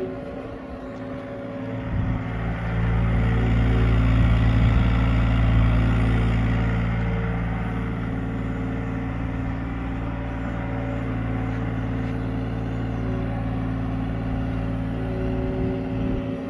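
Diesel engine of a Hyundai R35Z-9 mini excavator running steadily while the machine digs a trench and lifts out soil. It works harder and gets louder from about two seconds in, peaks a few seconds later, then settles back to a steady run.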